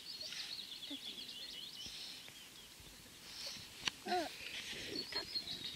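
Small birds twittering in a quick run of high chirps for the first couple of seconds, then a few short babbling coos from a baby about four seconds in, with bird chirps again near the end.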